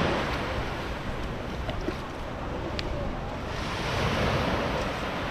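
Sea waves washing in on the shore, the wash swelling near the start and again about four seconds in, with wind buffeting the microphone.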